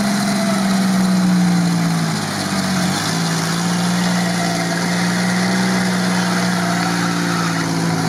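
Engine of a lifted Toyota 4Runner held at steady revs as the SUV climbs out of a muddy creek on mud tyres. Its pitch drops once about two and a half seconds in as the revs ease, then holds steady again.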